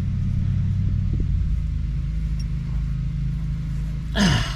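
A steady low mechanical hum, with a short, louder sound that falls in pitch near the end.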